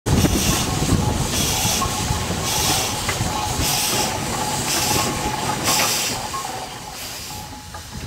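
Steam ploughing engine working, its exhaust puffing steam about once a second over a low rumble. The sound fades near the end.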